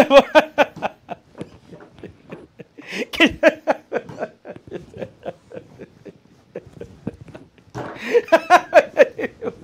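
A man laughing heartily in quick repeated 'ha' pulses. The laughter comes in three louder bouts, at the start, about three seconds in and near the end, with quieter chuckling between them.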